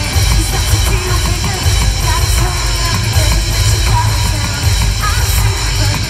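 Loud live rock music from a band on stage, dominated by heavy drums and a strong bass low end.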